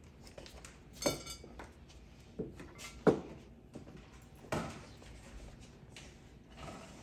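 Plastic food containers and a glass mixing bowl knocking and clinking as they are set down and moved on a table: a few separate sharp knocks, the loudest about three seconds in, the first about a second in ringing briefly.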